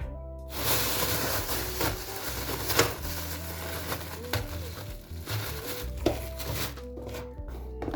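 Soft background music with a steady bass, over a continuous crackling, hissing noise with a few sharp clicks that fades out near the end.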